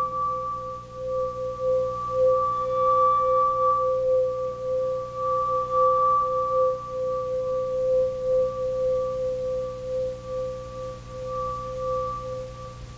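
Background music: a sustained ringing tone like a singing bowl, two steady pitches roughly an octave apart, gently pulsing in loudness and fading out near the end.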